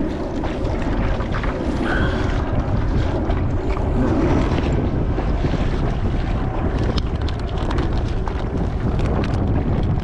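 Wind buffeting the microphone, over choppy water lapping against a kayak's hull, with a few light clicks in the second half.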